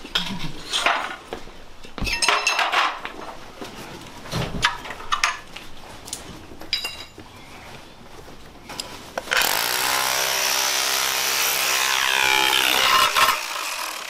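Scattered knocks and rubbing as bulky furniture is handled, then from about nine seconds a loud, steady grating of a tool scraping up flooring.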